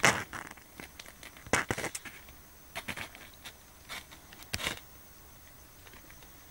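Kittens moving about on a fleece blanket close to the microphone: a few short bouts of soft rustling and scratchy crackles, the last about four and a half seconds in.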